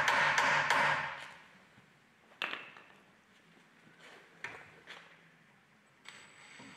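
Hammer tapping a steel punch against a steel truck-chassis bracket to mark hole centres for drilling. There are several quick metallic strikes with a ringing tail in the first second. After that come a few scattered clicks and knocks as tools are handled.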